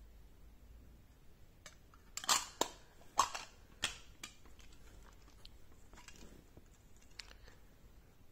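Metal lid fitted onto a small round tin of glass marbles: a handful of sharp metallic clicks a couple of seconds in as it goes on and is pressed down, then a few faint ticks.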